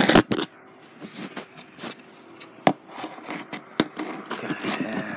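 Handling noise from the phone that is recording: fingers rubbing and scraping on it, with a few sharp clicks, the loudest right at the start.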